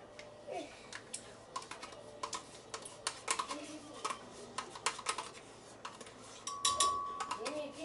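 Frozen fruit pieces dropped by hand into a glass blender jar, clinking and clattering as sharp, irregular knocks, a few a second.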